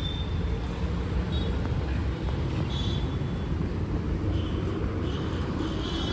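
Road traffic noise: a steady low rumble of passing vehicles, with a few faint short high tones.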